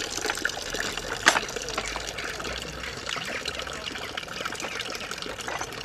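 Freshly pressed apple juice running from the cider press spout into a bucket in a steady trickle, as the scissor jack squeezes the apple pulp. A single sharp click comes about a second in.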